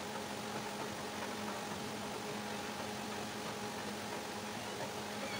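Steady mechanical hum, with a faint hiss under it, holding level and pitch without change.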